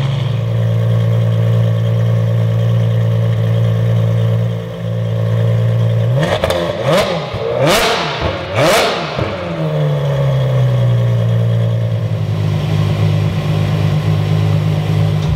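Ferrari F12berlinetta's V12 running through an Armytrix aftermarket exhaust: idling steadily, then revved sharply three or four times about six to nine seconds in, then settling back to idle.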